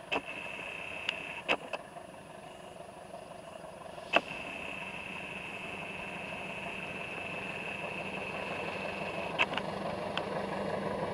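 Diesel-electric locomotive hauling a passenger train as it approaches, its engine and running noise growing louder toward the end. A steady high-pitched tone runs through much of it, with a few sharp clicks.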